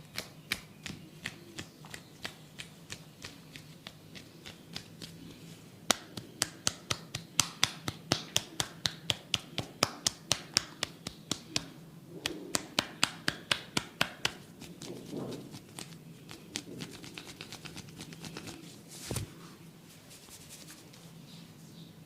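A barber's hands making quick, sharp snaps and taps during an Indian head massage, about four a second. They are light at first and loud and even through the middle, with softer rubbing between the strokes and a duller thump near the end.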